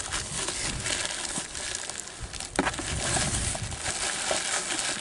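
Packaging being handled and unwrapped: continuous crinkling and rustling of wrapping material, with a few sharp clicks, the loudest about halfway through.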